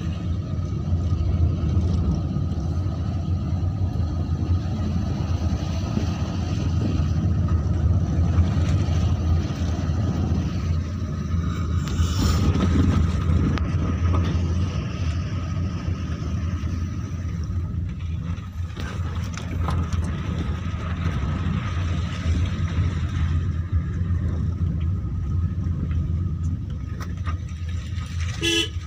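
Car engine and tyre rumble heard from inside the moving car's cabin, steady throughout, with a faint steady whine above it. A couple of brief clicks, one about halfway through and one near the end.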